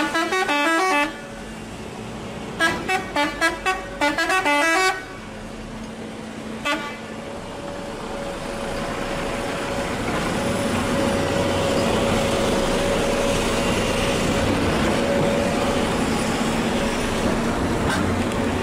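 A musical vehicle horn plays a quick tune of stepping notes, twice in the first five seconds. Then a diesel engine runs steadily, growing louder.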